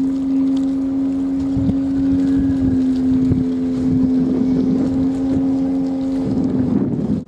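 Motorboat's engine running at a steady cruising pitch, with gusts of wind on the microphone. The steady drone gives way to rougher noise about six seconds in, and the sound cuts off abruptly near the end.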